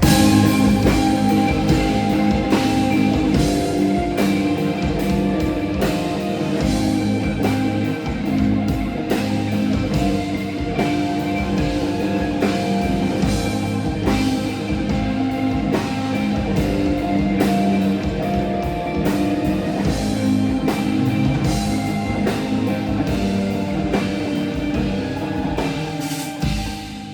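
Rock music with electric guitar and drum kit, a steady beat.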